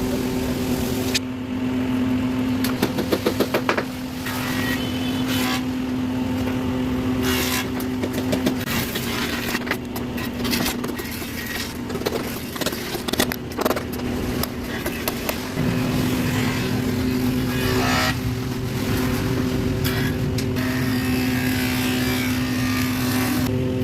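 A motor running with a steady hum, deepening about two-thirds of the way through, with scattered clicks and knocks and a quick run of clicks a few seconds in.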